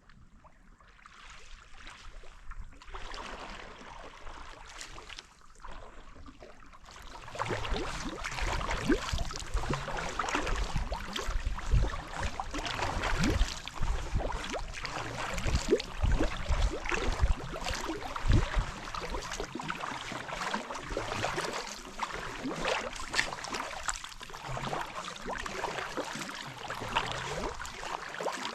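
Kayak paddling on flat water: paddle strokes with water dripping and splashing around the blades and hull, soft at first and becoming louder and busier from about seven seconds in.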